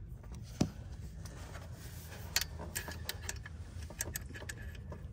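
A wrench tightening the nut on a NOx sensor's mounting bracket: scattered light metallic ticks at uneven intervals over a low steady hum.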